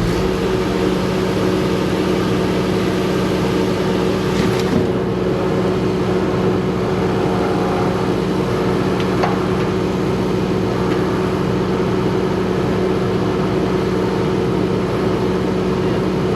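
A steady mechanical drone, an engine or motor running at a constant speed with an unchanging hum.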